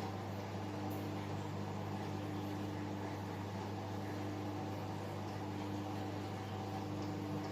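Steady hum and hiss of an aquarium filter pump running, with a constant low tone and no changes.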